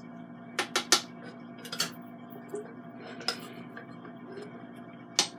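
A spoon clinking and scraping against the stainless-steel inner pot of an Instant Pot while chili is stirred: sharp clinks in small clusters, about a second in, near two seconds, past three seconds and near the end, over a faint steady hum.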